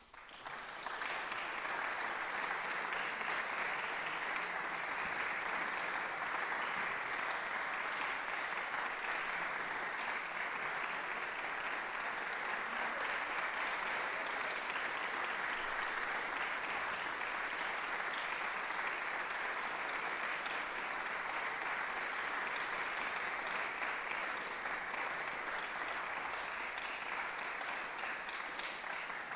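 Audience applauding: the clapping starts abruptly, is at full strength within about a second and then holds steady, easing a little near the end.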